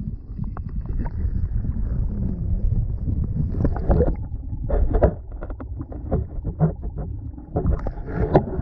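Muffled underwater sound from a camera held under the river surface: a low, steady rumble of moving water with a few sharp knocks and clicks.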